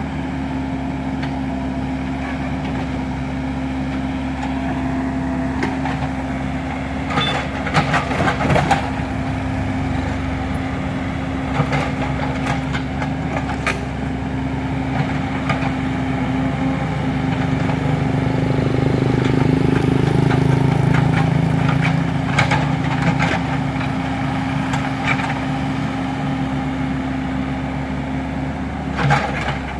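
Komatsu PC35 mini excavator's diesel engine running steadily while the excavator digs. The engine works harder for a few seconds in the middle, and there are sharp knocks now and then, in clusters about a third of the way in and again near the end.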